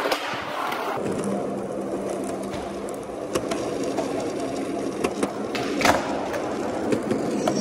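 Skateboard wheels rolling over a smooth concrete floor with a steady rumble, with a few sharp clacks of the board, the loudest about six seconds in. The hard walls and low ceiling of a parking garage give it an echo.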